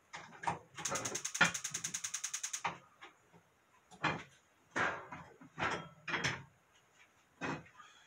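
A fast rattle of about ten clicks a second lasting nearly two seconds, followed by several separate knocks spread over the next few seconds.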